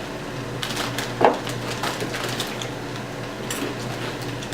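Crunching of rolled Takis tortilla chips being chewed, with irregular sharp crackles, the loudest about a second in, over a low steady hum.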